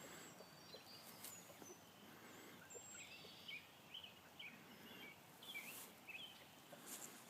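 Faint, high, short bird chirps, a dozen or so in the second half, over a low outdoor hiss.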